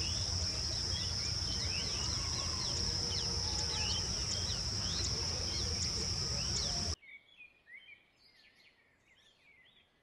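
Outdoor insect chorus: a steady high-pitched drone, with many short bird chirps over it and a low rumble beneath. It cuts off suddenly about seven seconds in, leaving only a few faint chirps.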